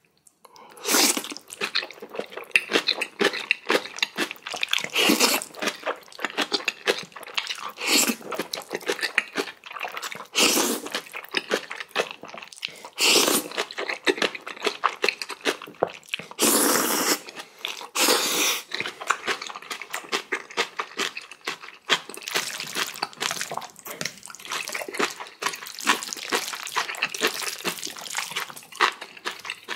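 Close-miked eating: jajangmyeon noodles slurped in repeated long wet draws, with wet chewing and crunchy bites of kimchi in between.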